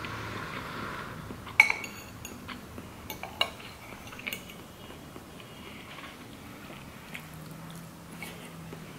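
Metal fork and spoon clinking and scraping against a plate: a few sharp clinks, the loudest about a second and a half in, then quieter scattered taps.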